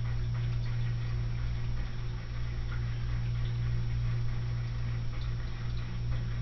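A steady low electrical hum, with a few faint soft ticks scattered over it.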